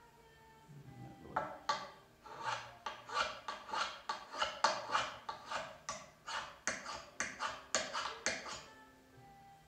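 Steel burnisher rod stroked quickly and repeatedly along the edge of a hardened-steel card scraper, short steel-on-steel scraping strokes at about three to four a second that start about a second and a half in and stop shortly before the end. Each stroke helps roll a fresh burr onto the scraper's edge so it will cut.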